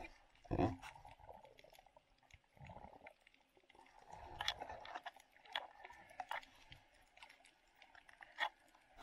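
Underwater sound picked up by a submerged action camera: irregular clicks and crackles with short swishes of moving water.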